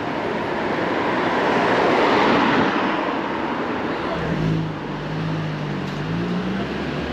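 Street traffic: a car passes close by, its noise swelling to a peak about two seconds in and then fading. In the second half a low engine hum comes in and rises slightly in pitch before it fades.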